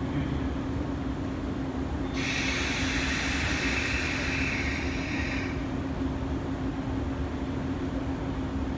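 JR West 117-series electric train standing at the platform, its equipment giving a steady hum with one clear tone over a low rumble. About two seconds in, a burst of compressed-air hiss from the train's air system lasts roughly three seconds and then cuts off.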